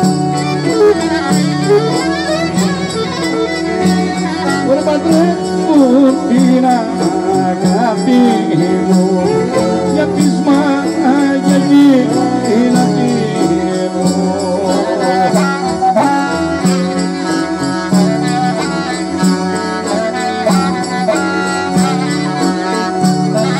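Greek traditional folk music: an ornamented melody line that slides and wavers over steady held drone tones, with a regular percussion beat.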